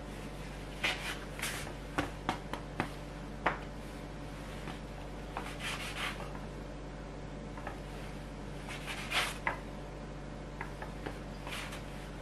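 Plastic dough scraper scraping and knocking on a wooden board as it cuts through bread dough, in short scrapes with sharp ticks, over a faint steady hum.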